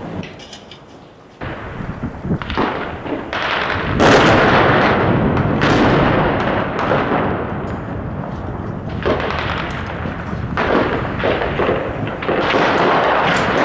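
Heavy gunfire and explosions in urban street fighting, shots crackling in dense clusters with long echoes off the buildings. The firing starts suddenly about a second and a half in and is loudest about four seconds in.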